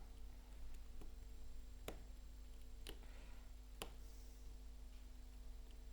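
Small sharp clicks of metal tools on tiny screws and a phone's plastic frame, about one a second, as a smartphone is screwed back together by hand, over a faint steady hum.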